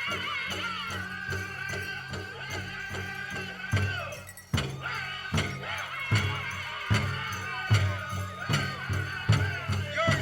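Powwow drum group singing high-pitched over a steady, even drumbeat. About four seconds in the song breaks briefly, then the drumbeats come back louder.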